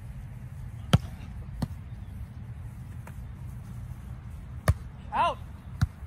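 A volleyball making four sharp, separate smacks: the loudest about a second in, another half a second later, then two near the end. A short shout comes between the last two.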